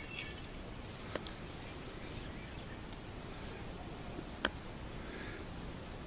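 Steady outdoor background noise with two short, faint clicks, one about a second in and one after about four and a half seconds.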